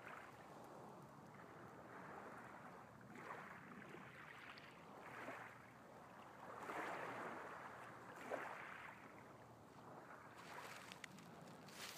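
Small waves lapping at a pebble shore: faint washes of water that swell and fade every second or two, with a few light clicks among the stones.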